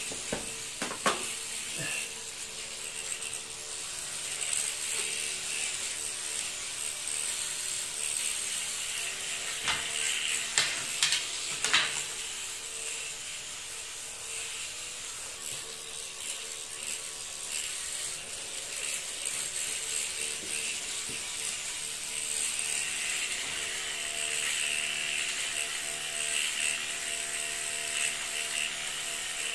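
Steady whine and hum of a homemade gyroscope-balanced two-wheeler, its DC motor spinning a heavy aluminium flywheel rotor. A few sharp knocks come about a second in, and a cluster of knocks comes around ten to twelve seconds in. The whine grows stronger over the last several seconds.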